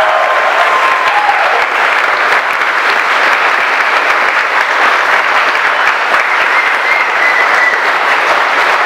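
A large crowd clapping steadily: loud, sustained applause.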